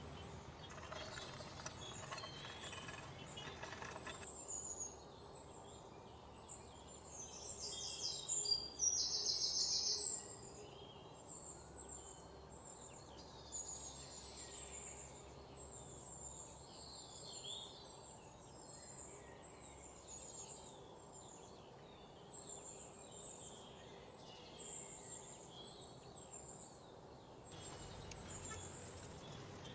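Birds chirping through most of the stretch over faint stirring and clinking of almonds and oats dry-roasting in a frying pan. A louder rattling clatter comes about eight to ten seconds in.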